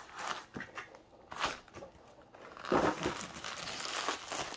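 A white USPS postal mailer crinkling and rustling as it is handled and pulled open, in irregular bursts, the loudest about three seconds in.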